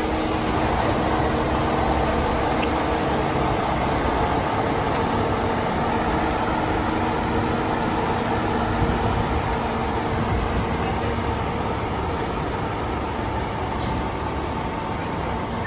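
A heavy diesel vehicle's engine, likely a fire truck, running steadily with a few level drones over road noise. No siren or air horn sounds.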